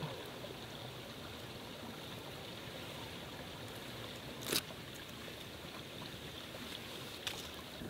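Steady, fairly faint rush of a flowing creek. Two short sharp clicks stand out, one about four and a half seconds in and one near the end, while a twig tinder bundle is being lit.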